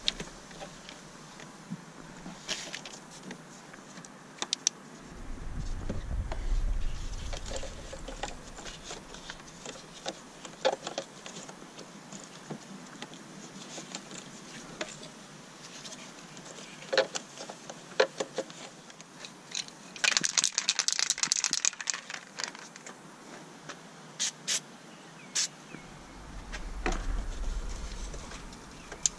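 Hand work on an engine: scattered clicks and knocks of parts and connectors being handled and fitted, with a quick run of rapid clicking about twenty seconds in. A low rumble comes in twice, near the start and near the end.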